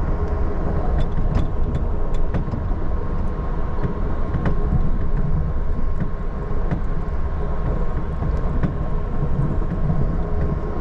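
Amtrak passenger train running at speed, heard from inside the passenger car: a steady low rumble of wheels on rails with a faint steady hum and scattered light clicks and rattles.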